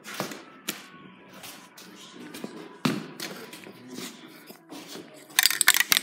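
Handling noise of a phone being carried and moved about: scattered taps and knocks, then a loud, dense crackling rustle close to the microphone about five seconds in.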